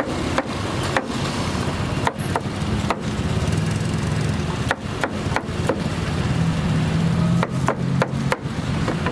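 Kitchen knife chopping pineapple on a plastic cutting board: about a dozen sharp knocks of the blade hitting the board, in uneven clusters, over a steady low rumble.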